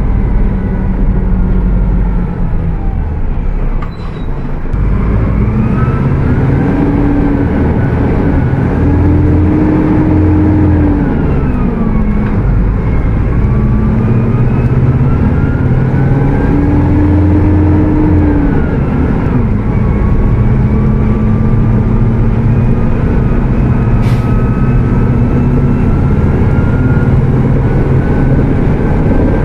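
Mercedes-Benz OF 1722M bus's diesel engine running at high revs while driving: its pitch climbs and drops back several times, about 4, 12 and 19 seconds in, as it goes through the gears, then holds steady. A high whine from the very loud cooling fan runs over it.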